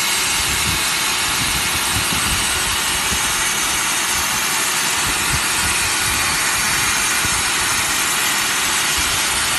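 CNC plasma torch cutting metal plate: the plasma arc and its air jet make a steady, unbroken hiss as the torch traces out shapes.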